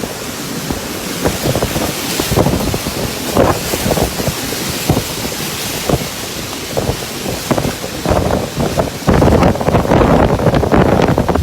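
Storm wind gusting hard against the microphone, rumbling and buffeting, over the hiss of heavy rain. The strongest, longest gust comes near the end.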